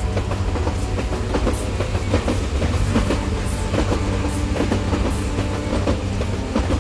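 A train running along its track: a steady low rumble with frequent, irregular clicks of wheels over the rails.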